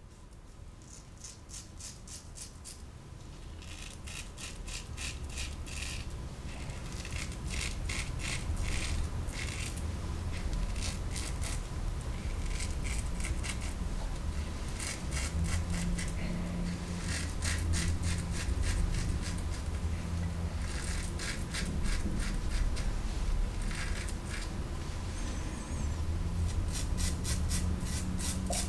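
Merkur 34C closed-comb safety razor with a Treet Carbon blade cutting stubble through shaving-cream lather on the against-the-grain pass: runs of rapid scratchy clicks, each stroke a second or two long with short pauses between, over a low steady hum.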